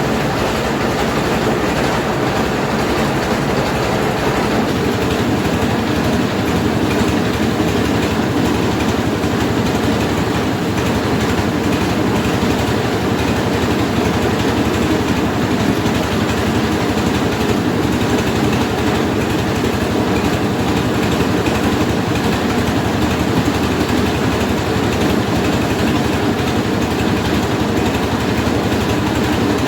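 Mobile rice milling machine running steadily and loudly: its engine together with the hulling and milling machinery. About five seconds in, the deepest part of the rumble drops away while the rest keeps running.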